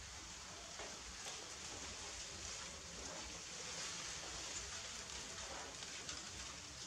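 A litter of puppies suckling from their mother: faint wet sucking and smacking clicks, scattered irregularly over a steady hiss.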